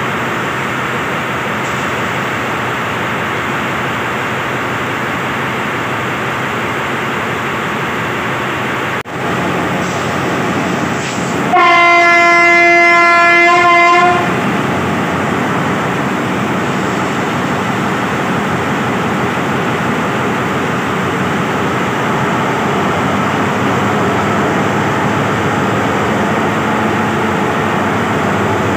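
A diesel locomotive horn sounds one steady note for about two and a half seconds, a little under halfway through. Around it is the steady noise of heavy rain and a diesel locomotive running alongside.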